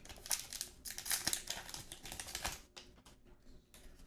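Hockey trading cards being handled and slid one over another, a quick run of light clicks and rustles that is busiest for the first two and a half seconds and then thins out.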